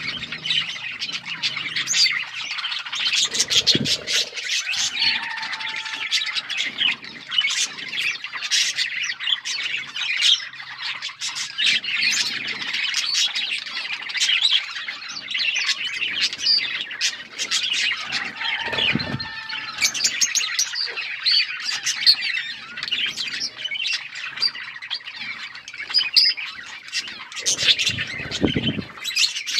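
A flock of budgerigars chattering and squawking nonstop in quick, high chirps. Three times a brief low thump cuts through the chatter.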